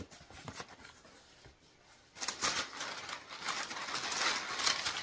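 Packaging being unwrapped from a parcel: light handling clicks at first, then from about two seconds in a dense crinkling and rustling of paper or plastic wrapping.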